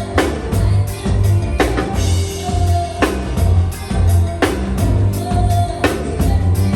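Live band playing: drum kit and heavy bass keeping a steady, repeating beat.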